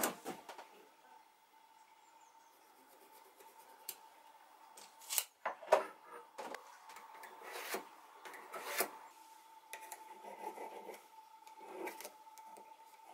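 Hand-tool handling on a wooden bench: a steel tape measure clicking and knocking as it is used and set down, the loudest knocks near the start and about five seconds in, then a pencil scraping around a steel disc on an oak blank. A faint steady high hum runs underneath.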